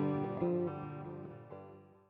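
Closing background music on guitar, a few notes changing, fading out to silence.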